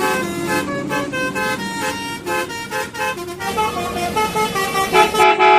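Telolet Basuri bus horn playing a tune: several horn tones sounding together and stepping from note to note every fraction of a second.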